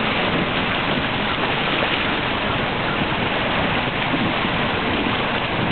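Ottauquechee River running high at ice-out: a steady rush of water carrying broken ice floes, with a dense crackle of small knocks from the ice jostling as it floats past.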